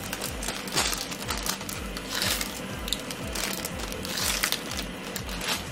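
Background music with a steady beat, about two low thumps a second, and scattered crackling clicks over it.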